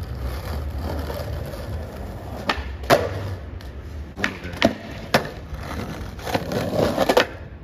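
Skateboard wheels rolling on street asphalt with a low rumble, then a string of sharp wooden clacks as the deck and tail hit the pavement during flat-ground tricks. The clacks come singly at first, then crowd together near the end.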